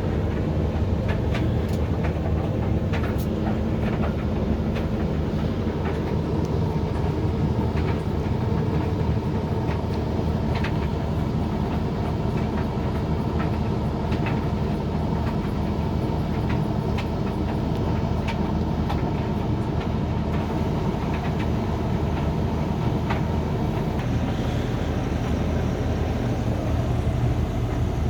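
Hoover XXL Extra Dry tumble dryer running a drying cycle: a steady motor and drum hum, with irregular light clicks as the load tumbles in the drum.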